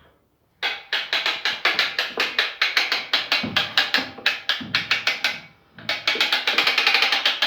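Ratchet of a homemade outboard-engine lift clicking rapidly as it is cranked, hoisting a heavy 15 hp outboard motor, in two runs with a brief pause about five and a half seconds in.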